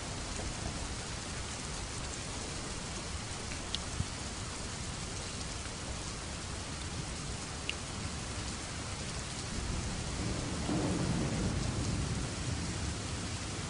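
Steady rain falling, with a few single drops ticking out sharply. About ten seconds in, a low rumble of thunder swells and then fades near the end.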